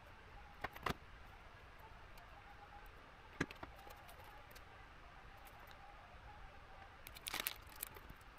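A few faint, sharp clicks and taps of metal tweezers and a soldering iron tip against a bare circuit board while small surface-mount parts are placed and soldered, with a quick cluster of taps near the end, over a quiet room hiss.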